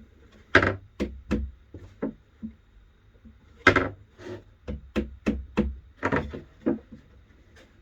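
Wood being knocked: about a dozen sharp knocks in two runs, as pieces of a wooden shelf frame are tapped into square before screwing.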